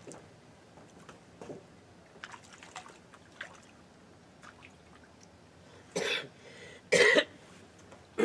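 A person coughing twice, short and harsh, about six and seven seconds in; before that only faint scattered ticks.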